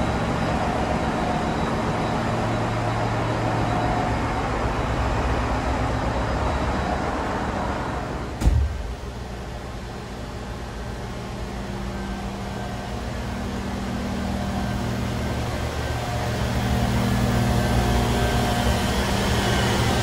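Ship engine-room machinery running: a steady hum with several held tones. A single thump comes about eight seconds in, after which the din is quieter, then it builds again toward the end among the oil purifiers.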